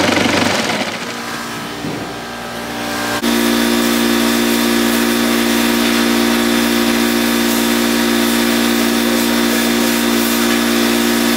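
An engine or motor running at a steady, unchanging speed with a constant hum. It cuts in abruptly about three seconds in; before that, the sound is quieter and fading.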